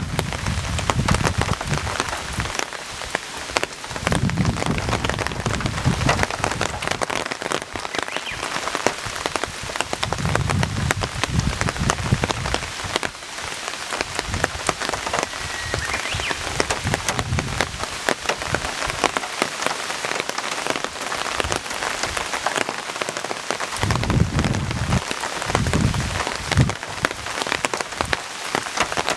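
Heavy rain pattering densely on surfaces, a steady hiss thick with fine drop clicks, with a few low rumbling swells coming and going.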